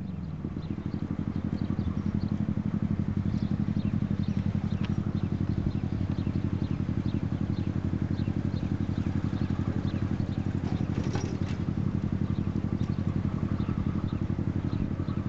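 A diesel engine running steadily: a low rumble with a fast, even beat that holds at one level, with faint scattered ticks above it.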